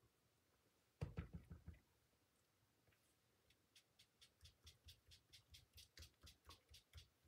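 Ink being dabbed onto cardstock by hand, faint: a quick flurry of soft taps about a second in, then a steady run of light taps about three a second.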